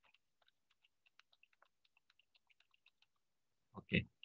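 Faint, quick keystrokes on a computer keyboard as a line of text is typed, followed near the end by two louder knocks.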